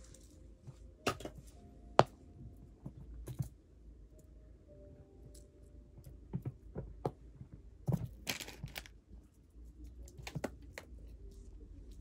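A cat playing with a small ball toy on a mat over carpet: scattered taps, thumps and scuffs of paws landing and the toy being batted, with the sharpest knock about two seconds in and a burst of scuffling about eight seconds in.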